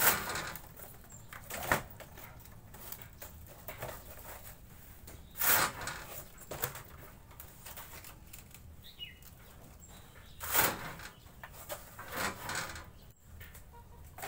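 Dry waste wood veneer sheets being handled and cut on a hand-operated lever cutter: several short, crisp bursts of scraping and shearing, spaced a few seconds apart.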